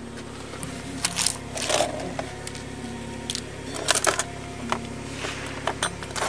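Soft background music with a slowly moving melody, under a series of sharp rustles and clicks from things being handled inside a car, among them a small spiral notepad and a card.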